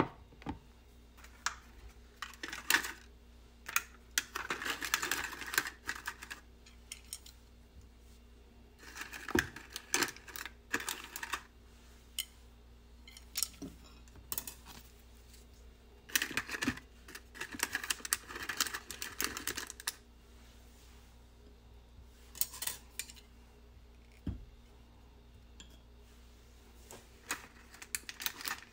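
Paper cupcake liners crinkling and rustling as they are handled and pressed into a plastic bento bowl, in several bouts of a few seconds each, with light clicks and taps of food and chopsticks against the plastic.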